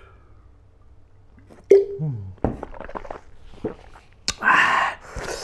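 A man's drinking and eating mouth noises: a gulp with a short falling voice sound just under two seconds in, then small mouth clicks, and a sharp click followed by a breathy rush about a second before the end.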